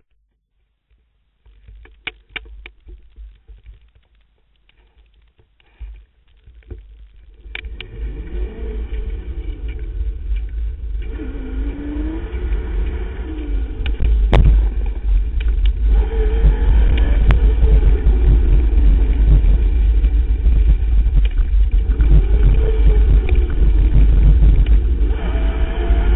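Riding noise from a camera mounted on an electric mountain bike. Scattered clicks and rattles over the first few seconds give way, from about 8 seconds in, to a loud low rush of wind on the microphone, with a faint whine rising and falling in pitch and occasional knocks over bumps.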